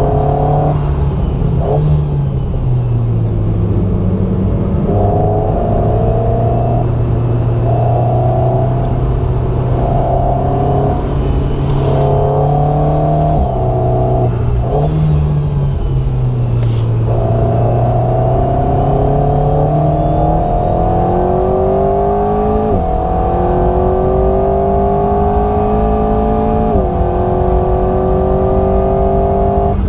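Alpine A110 GT's turbocharged four-cylinder engine heard from inside the cabin at track pace: the note rises and falls through a sequence of corners, with a couple of sharp cracks, then climbs steadily under full acceleration, dropping in pitch at two upshifts.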